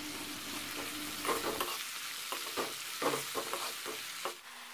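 Onions, tomatoes and dried red chillies sizzling in oil in a metal kadai, with a spoon stirring and scraping against the pan in short strokes from about a second in.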